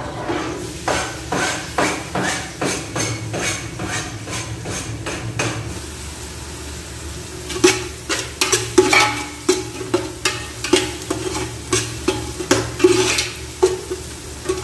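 Utensil stirring chopped onion and garlic sautéing in oil in an aluminium pot, scraping and knocking against the pot's side in a quick repeated rhythm. Halfway through the strokes turn into sharper, louder metallic clacks.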